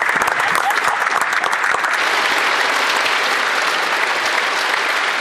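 Members of parliament applauding: many hands clapping at once in a steady, sustained round of applause.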